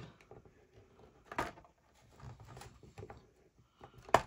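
Snap-off craft knife scoring and cutting along the edge of a white plastic sheet in short, uneven strokes: soft scrapes and small clicks, with one sharp click about four seconds in.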